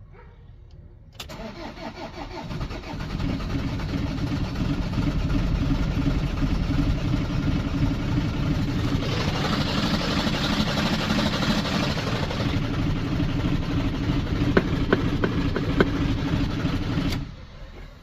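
Citroën Jumper van engine cranking on the starter for a second or two, then catching and running steadily before it is switched off suddenly near the end. The van is one that is hard to start when cold.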